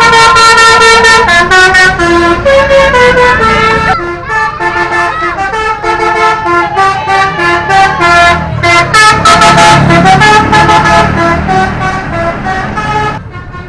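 Bus telolet horn, a multi-tone air horn, playing a quick tune of short stepping notes, one after another, loud, and stopping shortly before the end.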